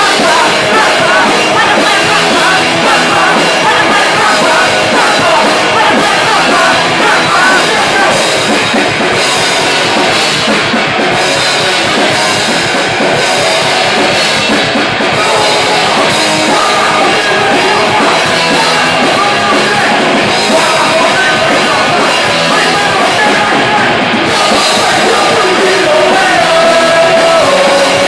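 Live punk rock band playing loud, steady electric guitars, bass guitar and a drum kit.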